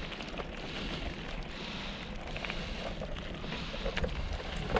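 Wind rushing over the microphone of a camera moving along on a bike ride, a steady low rumble and hiss with a few faint clicks.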